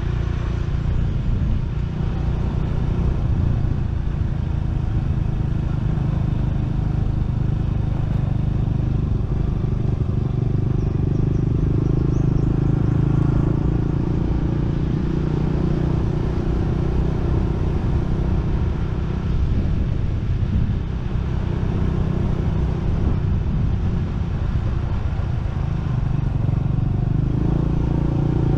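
Motorcycle engine running steadily under way, its note swelling a little now and then, over a low rumble.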